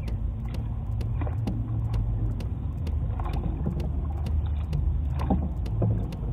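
Low, steady rumble of wind and water on a small paddled boat, with a soft paddle splash now and then. Faint regular clicks run about three a second.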